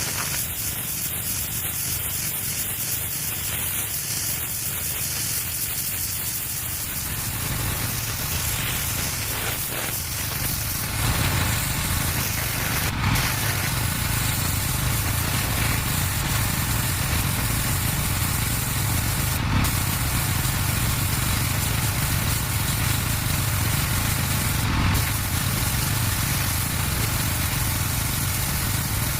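Pressure washer running: a steady motor drone under the hiss of the high-pressure water jet, which gets louder about eleven seconds in. A rapid high ticking, about four a second, sounds over it for the first several seconds.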